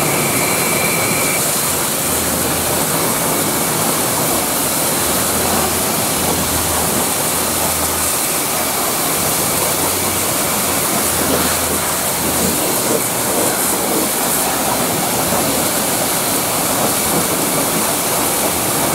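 High-pressure washer jet spraying steadily onto a truck's steel side rails, chassis and tyres, a constant loud hiss of water striking metal and rubber. A low hum comes and goes under the spray during roughly the first two-thirds.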